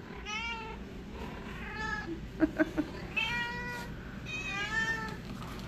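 Calico cat meowing repeatedly in a strong voice, about four long drawn-out meows. A quick run of three short, loud sounds comes near the middle.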